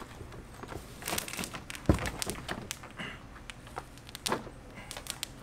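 Cardboard box rustling and scraping, with scattered knocks, as a cordless push lawn mower is lifted out of it. A single heavy thump comes about two seconds in as the mower is set down.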